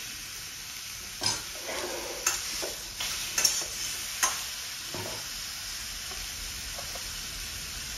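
Chunks of fatty pork sizzling in a wok while a metal slotted spatula stirs them, with several sharp clatters of spatula and meat against the pan in the first five seconds. The fat is beginning to render out its oil.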